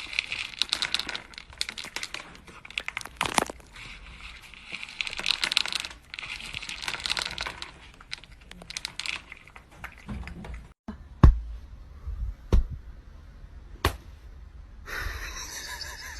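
Crinkling and crackling of some crinkly material being handled for about ten seconds, then a few separate sharp clicks.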